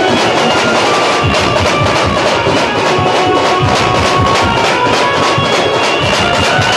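Banjo party band playing: a held, nasal melody line from the amplified Indian banjo over fast, dense drum beats.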